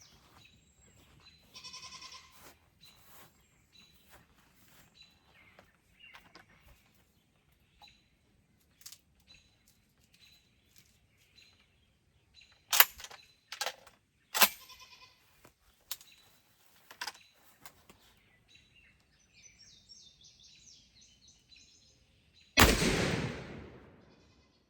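Two sharp clicks about halfway through, then near the end a single shotgun shot firing a 1 oz #3 TSS load, echoing and dying away over about two seconds.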